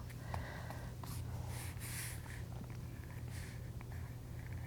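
Short, soft scratchy strokes of a stylus drawing on a tablet screen, several in a row, over a low steady hum.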